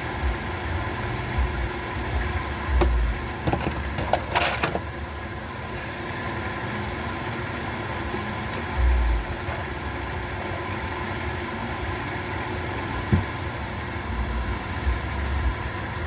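Steady engine-like mechanical hum with a few sharp clicks and a brief hiss about four seconds in.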